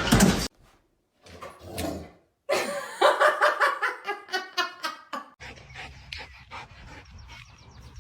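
A dog giving a run of pitched, pulsing whines and yowls for a few seconds. After it come quieter clicking noises.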